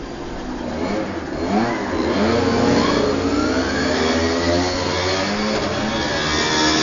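Small two-stroke petrol engines of 1:5 scale RC rally cars revving, their buzzing note rising and falling again and again as the cars speed up and slow down. A steady low hum runs underneath.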